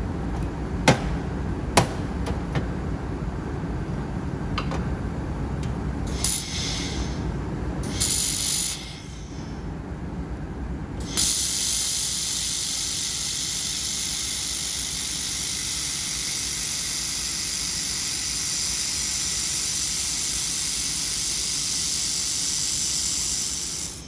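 Handheld fiber laser welding head hissing with gas flow while welding wire into stainless steel. A few sharp clicks come first, then short hisses, then a long steady hiss from about halfway that cuts off suddenly near the end.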